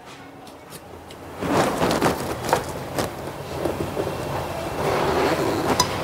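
Box cutter blade scraping and cutting at the thick rubber outer jacket of an e-rickshaw charging cable, slitting it open to reach the wires inside: an irregular scratching with small clicks that starts about a second and a half in.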